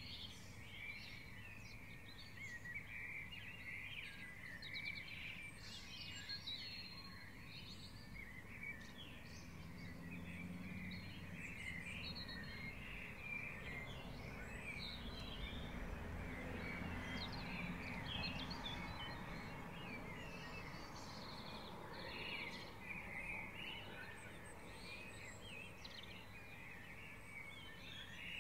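Dawn chorus of many songbirds singing at once, a dense overlap of chirps, whistles and trills. A low background rumble underneath swells in the middle and fades again.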